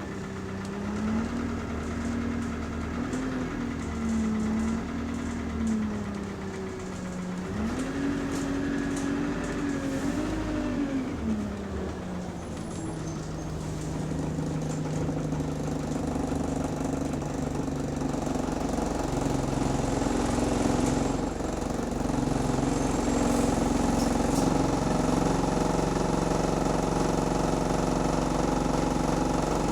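Bus engine heard from on board. Its pitch rises and falls several times over the first dozen seconds, then it runs steadily at a lower, even speed and gets a little louder about twenty seconds in. The engine is said to have a rod knock.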